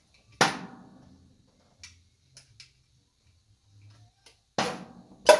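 Sharp metallic knocks and clinks of a hand tool working on the ignition coil's mounting bolts under the hood: one loud knock about half a second in, a few light ticks, then two loud knocks near the end.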